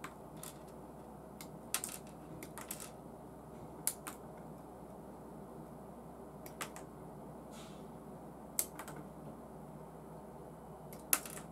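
Scattered sharp clicks and taps of hard plastic model-kit parts and sprue frames being handled, about ten in all at irregular intervals, the sharpest near the end.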